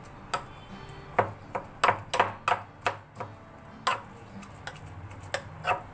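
Irregular sharp knocks, about a dozen, closest together about two seconds in, of walnuts being crushed by hand into a fine paste.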